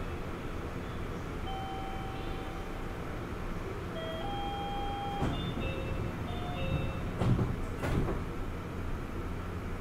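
Door-closing chime of short electronic tones in a Kobe New Transit 3000 series (Rokko Liner) car at a station stop, followed by three thuds as the sliding doors shut. The car's air conditioning hums steadily underneath.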